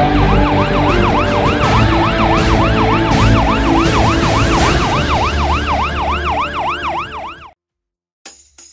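Ambulance siren sound effect: a short rising wail, then a fast yelp repeating about four times a second, which cuts off suddenly near the end.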